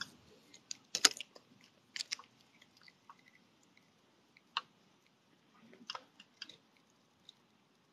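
Faint, irregular clicks and taps over a low hiss, the sharpest about a second in, at two seconds, and near four and a half and six seconds.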